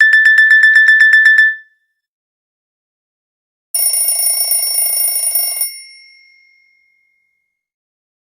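Two Nokia E6 stock alert tones played one after the other. First a fast run of high beeps, about eight a second, for about a second and a half; then, after a two-second gap, a buzzing, rattling tone with a high ringing overtone that lasts about two seconds and rings out.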